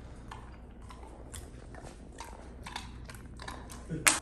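German Shorthaired Pointer puppy lapping water from a bowl, a string of short wet laps about two a second, with a louder knock near the end.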